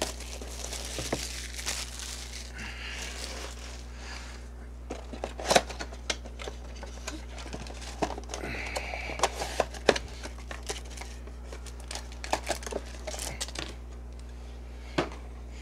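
Crinkly wrapping of a trading-card box being handled and torn open, in patches of rustling with scattered sharp clicks and taps.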